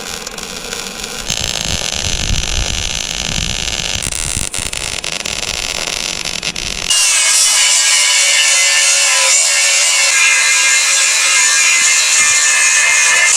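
Power grinder grinding scrap steel: a rough, loud noise that suddenly turns louder and harsher, with a steady high whine, about seven seconds in.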